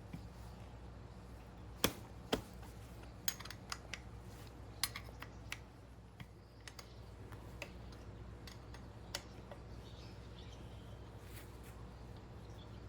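Hand tools clicking and tapping against metal parts in irregular, scattered strikes, the two loudest about two seconds in and a cluster of lighter ones soon after, over a steady low hum.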